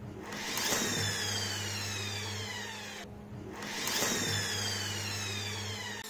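Washing machine universal motor, fitted with permanent magnets as its field, spun up twice by pulling a cord wound on its pulley. Each spin starts suddenly as a whirring whine that falls in pitch as the rotor coasts down.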